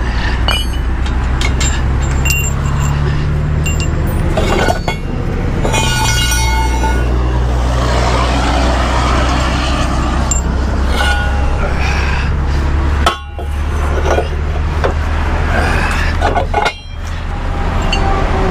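Heavy steel tow-truck underlift fork heads clinking and clanking as they are handled and turned over on the pavement, some strikes ringing briefly, over the steady idle of a diesel truck engine.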